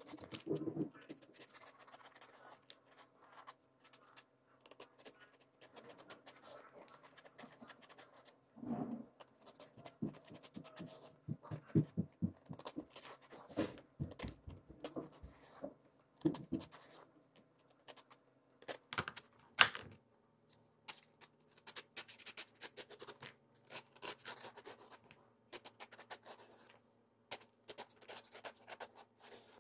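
Kitchen knife shaving the ridged skin off a luffa gourd: irregular short scraping strokes of the blade against the peel, with a few sharper clicks, the loudest about two-thirds of the way through.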